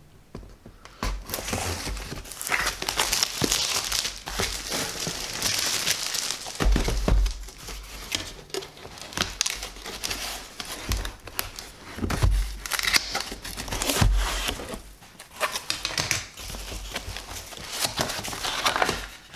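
Cardboard box being opened: a knife slitting the packing tape, then the flaps pulled back and the packaging rustling and crinkling, with a few dull knocks on the box.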